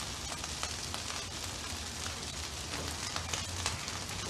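Pre-cooked rice with a little olive oil sizzling on a hot flat-top griddle: a steady crackling hiss.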